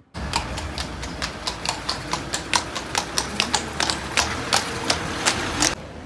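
Horse's hooves clip-clopping on a hard street surface, about three or four strikes a second, over a low rumble. It stops abruptly near the end.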